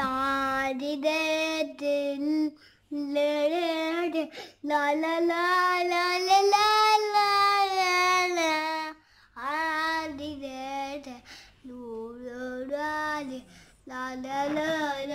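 A young girl singing unaccompanied, in about six phrases of long held notes with short breaks between them.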